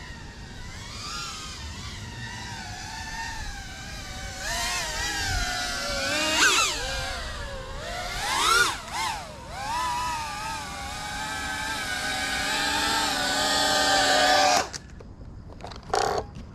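FPV quadcopter's motors whining, the pitch rising and falling with the throttle, with sharp climbs about six and eight and a half seconds in. The whine cuts off suddenly near the end, followed by a few short clicks.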